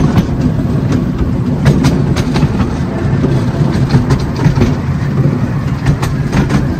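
A 10¼-inch gauge miniature steam train running along: a steady low rumble of the carriage wheels with frequent irregular clicks over the track.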